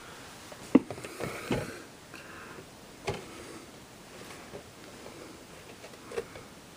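Handling noises: a sharp knock a little under a second in, followed by brief rustling, then another knock about three seconds in and a softer one near the end.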